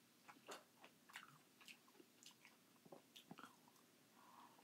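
Faint close-up eating sounds of canned crushed pineapple taken from the tin with a plastic spoon: wet chewing and mouth smacks with irregular small clicks.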